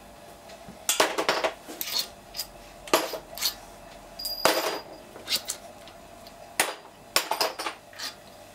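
Steel engine parts and tools being handled on the workbench: an irregular series of sharp metallic clinks and clatters about once a second, some ringing briefly.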